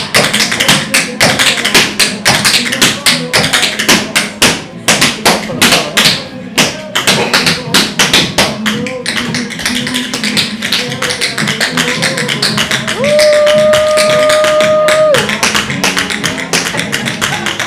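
Tap dancing: fast runs of shoe taps on a hard floor over backing music. A long held tone rises out of the music about two-thirds of the way through.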